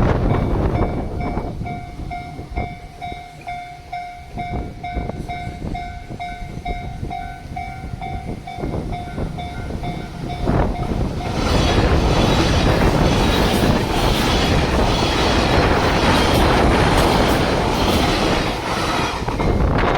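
Japanese railway level-crossing alarm ringing, a repeated bell tone at about two strikes a second. About eleven seconds in a train reaches the crossing and runs through it, a loud rumble with the clacking of wheels over rail joints that drowns out the bell.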